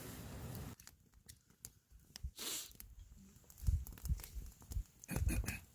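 Campfire wood crackling, with scattered sharp pops and a few dull low thumps in the second half; a steady hiss cuts off abruptly under a second in.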